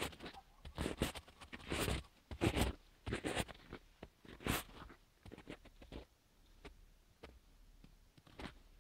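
Footsteps crunching in fresh snow, irregular crunches about once a second that thin out to faint ticks after about five seconds.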